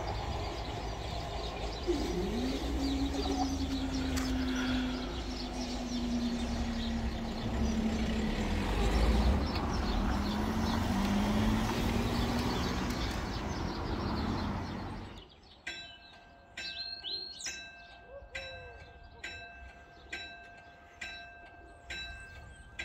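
An electric train's rumble fading away, with a low humming tone that wavers in pitch. About 15 seconds in this gives way suddenly to a UK level crossing's warning alarm: steady high tones with regular strikes, a bit over one a second, as the crossing begins its lowering sequence.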